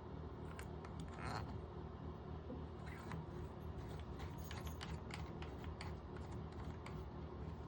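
Scattered light clicks and taps of shower-knob trim pieces being handled and screwed onto the valve stems, over a steady low hum.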